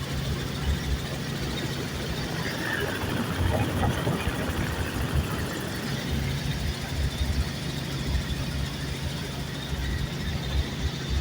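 Helicopter engine and rotor noise: a steady, loud drone with a low rumble underneath.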